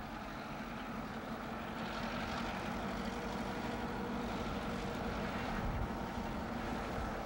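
EMD GP9 diesel-electric locomotives, with two-stroke 16-cylinder 567 engines, running as they approach at slow speed; a steady engine drone that grows gradually louder.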